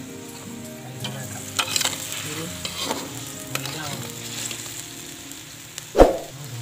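Freshwater crabs sizzling in a bubbling soy-and-chili sauce in a wok as it cooks down, while a metal spatula stirs and scrapes against the wok a few times. A loud thump about six seconds in.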